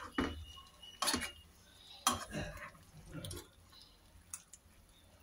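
A spoon scraping and clinking against a cooking pan as cooked vegetables and ground coconut paste are lightly stirred together: a few separate clinks and short scrapes.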